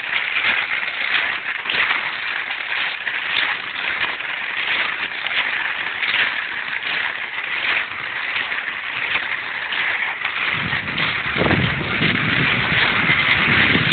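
Cross-country skis swishing and scraping over snow, with a stride roughly every second. From about ten and a half seconds in, wind buffeting the microphone adds a low rumble.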